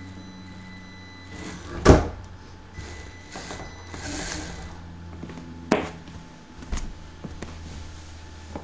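An Axial AX10 RC rock crawler's electric motor and gearbox whirring steadily as it climbs wooden blocks, with a loud knock about two seconds in as it tumbles over on the blocks, and smaller knocks of the chassis and tyres on the wood near the end.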